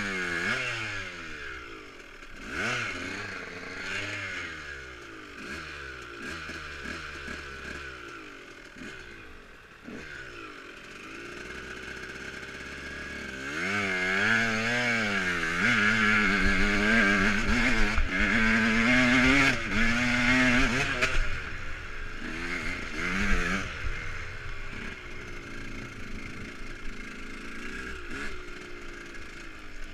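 Dirt bike engine heard from on board: a string of short throttle blips, each falling away, then about a third of the way in it is held hard at high revs for around eight seconds, pitch wavering, as the bike climbs a steep grassy hill. It then eases back to a lower, steadier run.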